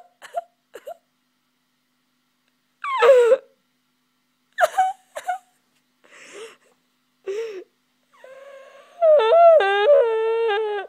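A person's voice wailing and whimpering without words: several short cries, then a long, wavering wail over the last few seconds.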